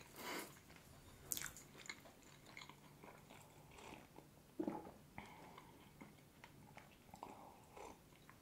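Faint close-up mouth sounds of a person chewing a soft basket pastry, scattered small clicks and smacks, then sips and swallows of hot tea from a mug in the second half.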